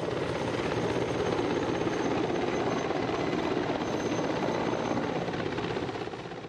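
Mi-35 attack helicopter flying close past, with dense rotor and turbine noise that fades away near the end.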